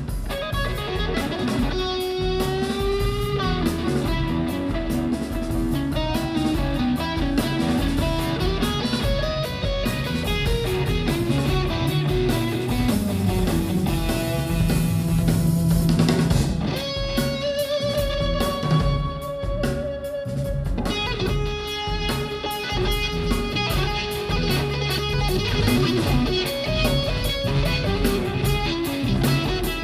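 Rock band playing live: electric guitar playing a lead line of long held notes, some bent and wavering, over drums.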